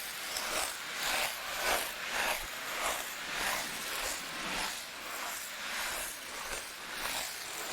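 Metal ice-skate blades gliding and scraping on rink ice in repeated strokes, a hissing scrape that swells and fades about once or twice a second.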